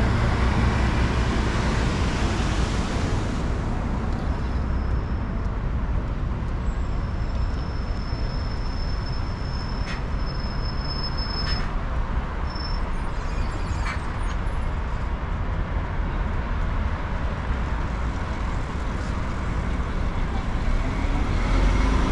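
Steady road-traffic noise from cars and buses crossing the bridge, with a faint high whine held for several seconds near the middle.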